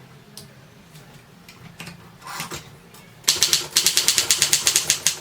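Typewriter platen being turned, its line-spacing ratchet clicking in a fast, even run of about nine clicks a second starting a little over three seconds in. A few lighter clicks and a short rustle of the mechanism come before it.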